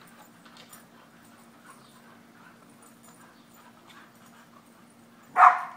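An English springer spaniel gives one short, loud bark near the end; before it, only faint scattered ticks and rustles.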